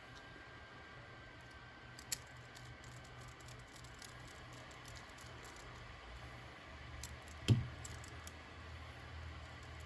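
Small parts of an RC truck's front suspension being handled and fitted by hand: a sharp click about two seconds in, a few light ticks, and a louder short knock about three-quarters of the way through, over a faint steady hum.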